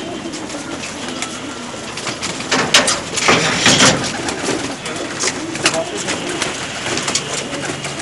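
Domestic pigeons cooing as they crowd together to feed, with a loud flurry of wing flaps and scuffling from about two and a half to four seconds in.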